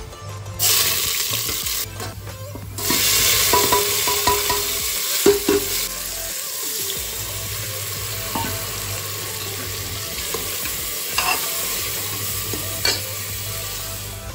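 Spices and then tomato going into hot oil in a pressure cooker and sizzling. A loud frying hiss starts about half a second in, grows louder a couple of seconds later, then settles to a steady sizzle, with a few clinks of a steel ladle stirring the masala.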